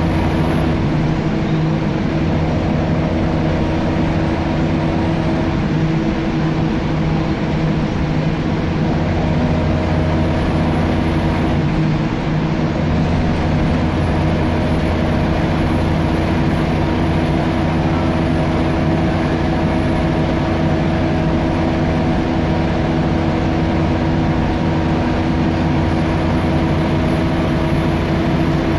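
Scania L94UB single-deck bus's rear-mounted diesel engine, heard from the back seat over the engine bay, pulling steadily under way with a constant low drone and road noise. The drone eases briefly about twelve seconds in.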